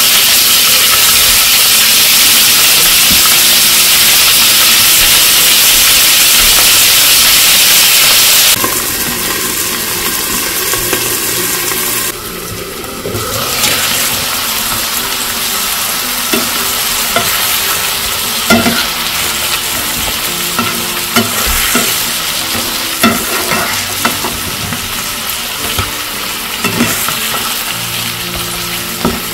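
Zucchini slices and chopped onion sizzling in oil in a frying pan: a loud, even hiss that drops suddenly to a quieter sizzle about eight seconds in. In the second half the sizzle goes on under scattered clicks and knocks of a utensil as the vegetables are tossed in the pan.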